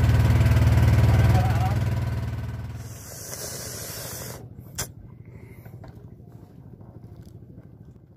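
A boat's motor running with a steady deep hum, fading and dropping out about three seconds in. After that it is much quieter, with one sharp knock near five seconds in.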